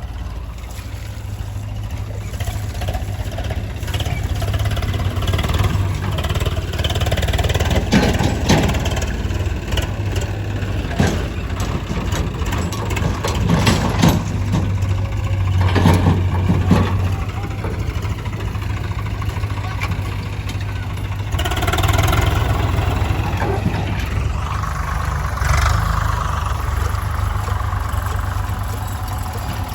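Diesel engine of a JCB backhoe loader running and working under changing load, with several knocks and rattles around the middle.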